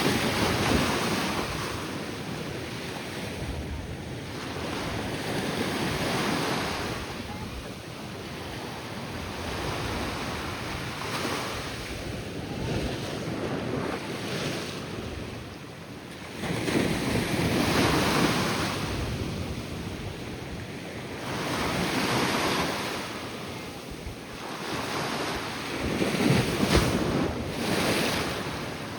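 Ocean surf breaking and washing up on a beach in repeated swells every few seconds, the strongest surges about two-thirds of the way in and near the end, with wind buffeting the microphone.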